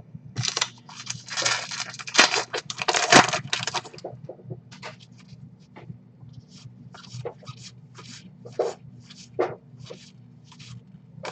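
Foil trading card pack wrapper tearing and crinkling for about three seconds, then cards being slid off a stack one at a time, a short swipe about every second.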